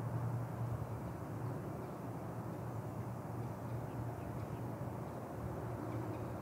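Steady low hum over a constant noise background, with no distinct event standing out.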